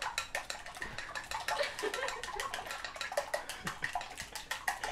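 Rapid, fairly even clicking and light clatter of kitchen utensils, with faint murmured voices in the background.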